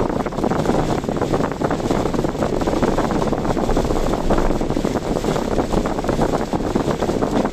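Steady rushing wind noise and vehicle road noise while driving in typhoon winds.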